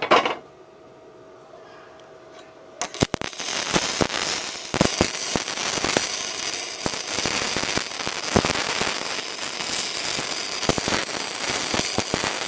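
Gasless flux-core MIG welding with E71T-GS wire on a Tenya NB-200 mini welder, joining 6 mm thick plates. About three seconds in the arc strikes with a few sharp pops, then crackles and spatters continuously.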